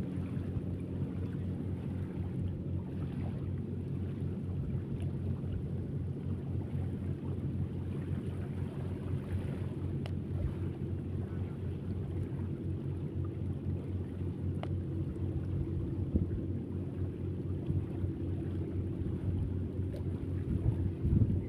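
A steady low engine hum, with wind buffeting the microphone.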